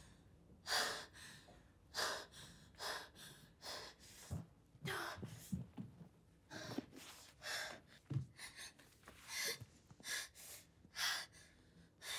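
A woman breathing hard in ragged, gasping breaths, about one or two a second, with a few short voiced catches in her breath between them, the sound of someone in acute distress.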